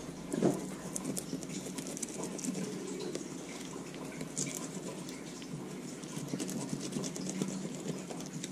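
Fillet knife slicing along a crappie's backbone on a plastic cutting board, with fine crackling and scraping as the blade runs over the bones. There is one knock about half a second in.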